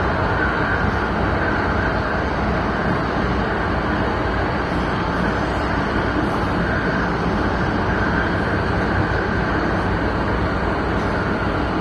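Steady running noise of a Hong Kong MTR Tsuen Wan line train, heard from inside the passenger car as it travels through the tunnel between stations. Wheels on rail and the car's hum make a loud, even rush with a brighter hiss in the upper middle.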